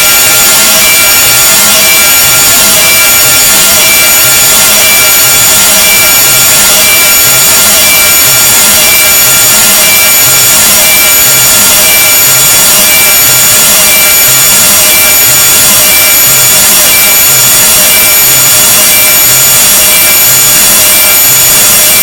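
Very loud, harsh rasping noise sound effect, like sawing or rubbing, with several steady whining tones over it and a low pulse repeating about one and a half times a second.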